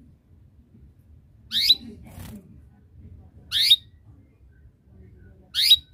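Domestic canary giving short rising chirp calls, three of them about two seconds apart. These are calls used to draw other canaries into singing.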